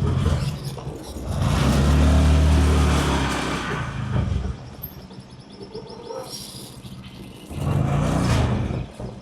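Motor vehicle engine running, growing louder about a second and a half in, fading, then swelling again near the end.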